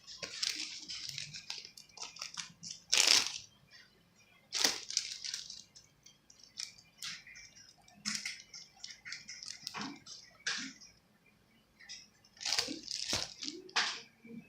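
Homemade slime being squeezed and worked by hand: irregular wet squishing and crackling, with louder squelches about three seconds in, about five seconds in and near the end.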